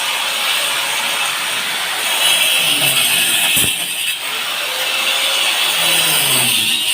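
A hand pump (tube well) being worked by hand: the handle and plunger make a repeated scraping, creaking stroke noise that swells and falls in a slow rhythm.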